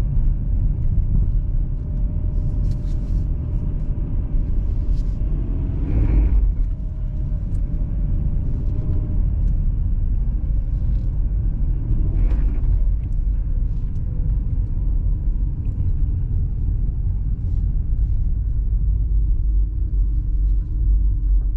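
Car driving over packed ice and snow, heard from inside the cabin: a steady low rumble of tyres and engine, with two brief louder bumps about six and twelve seconds in.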